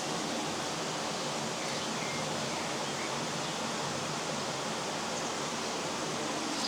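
Steady rush of flowing river water, with a few faint, brief bird chirps over it.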